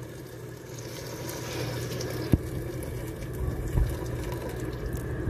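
Hot water being poured into a pressure cooker pot: a steady filling sound that grows slowly louder, with two light knocks along the way.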